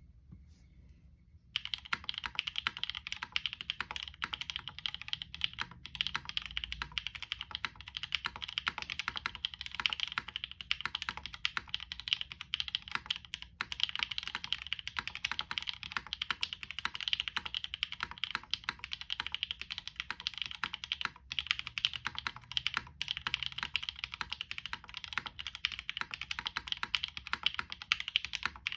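Continuous fast typing on a Monokei Kei R2 mechanical keyboard with Novelkey Cream linear switches, a POM plate and GMK keycaps: a dense run of keystroke clacks that starts about a second and a half in.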